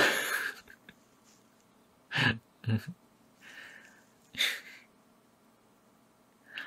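A man's short breathy vocal sounds: a sharp exhale at the start, then a few brief huffs and breaths spaced a second or two apart, with quiet between them.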